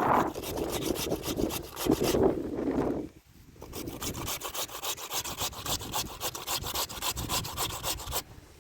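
Potatoes being grated by hand on a metal grater: quick, even rasping strokes, about five a second, with a short pause about three seconds in.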